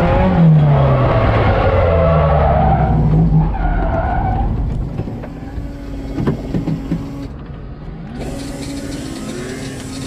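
Drift car's engine dropping in pitch as it comes off the throttle, with tyre squeal as the car slides. About four seconds in the engine note dies away and it goes much quieter, consistent with the car having looped and stalled.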